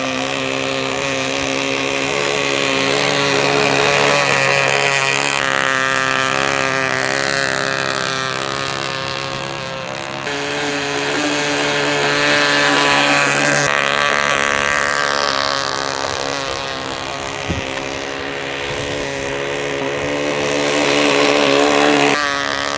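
Merco 61 two-stroke glow engine of an RC speed boat running at speed, getting louder and fading again several times as the boat passes near and away, its pitch shifting partway through. The engine is still being run in.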